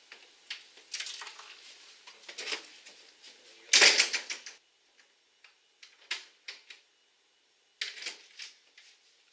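Scattered short clicks, knocks and rustles of things being handled, with one louder burst of rustling noise about four seconds in.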